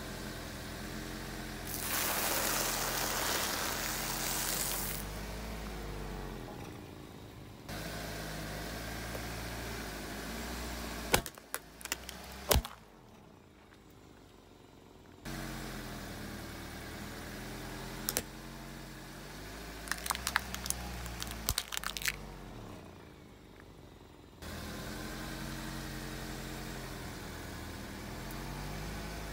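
A car's engine running at low speed as its tyre rolls over things on asphalt. There is a stretch of crunching hiss a couple of seconds in, then sharp cracks around the middle as hard plastic food containers break under the wheel, and another cluster of cracks later on.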